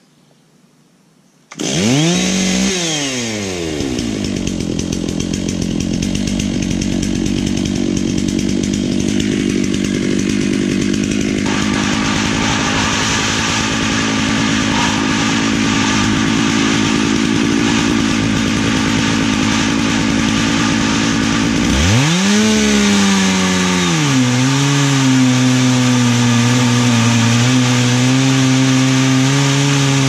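Chainsaw running at high revs under load in an Alaskan mill, ripping lengthwise through an ash log. The sound cuts in suddenly about a second and a half in, and about two-thirds of the way through the engine pitch dips and then settles steady again.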